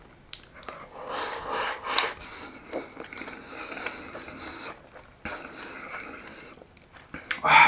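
A person eating rice with egg from a bowl with chopsticks, close to the microphone: mouthfuls taken in and chewed, with breathing through the nose, in three bouts. A short loud sound near the end.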